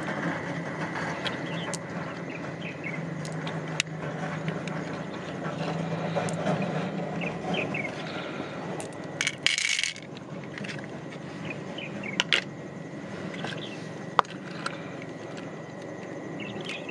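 Pearls clicking against shell as fingers pry them from freshwater mussel flesh and drop them into an open shell, with scattered sharp clicks and a brief rasp about halfway through. A steady hiss runs underneath.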